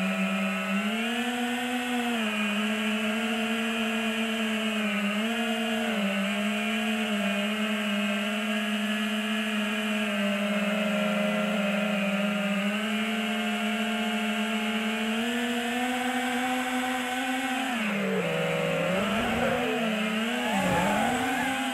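FPV racing quadcopter's brushless motors and propellers whining steadily, heard from the onboard camera, the pitch stepping up and down with the throttle. Near the end the pitch dips and wobbles quickly several times as the throttle is chopped and punched.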